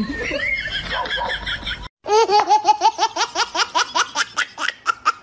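Laughter: a quick run of high-pitched 'ha-ha' bursts, about four a second, starting abruptly about two seconds in.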